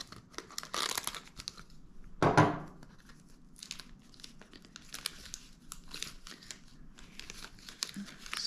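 A cardboard-and-plastic mesh patch package being torn open and crinkled by hand: a sharp tearing rip about two seconds in, with lighter crackling and rustling of the plastic around it.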